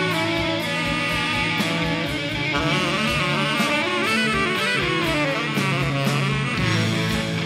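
Heavy rock band playing live: a sustained, bending lead electric guitar over bass guitar and drums, the kick drum on a steady beat.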